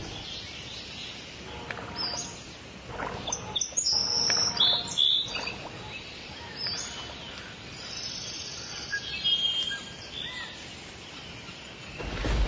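Wild birds chirping: scattered short, high calls and whistles over faint outdoor ambience, busiest in the first half. A deep low sound swells in near the end.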